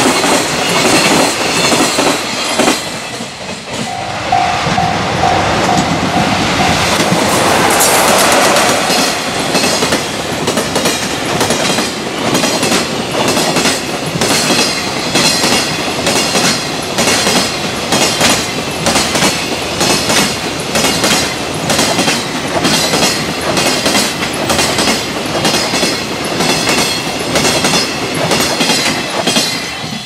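Freight train wagons rolling past at speed, their wheels clattering over the rail joints in a fast, steady clickety-clack. A pulsing ringing tone sounds briefly, about four seconds in.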